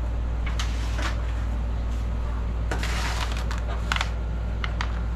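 A disposable aluminium foil baking pan being handled: scattered sharp clicks and knocks, with a brief crinkling rustle of the thin foil about three seconds in, over a steady low hum.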